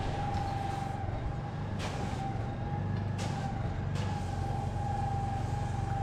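An engine running steadily with a constant whine over its low hum, and a couple of short swishes about two and three seconds in.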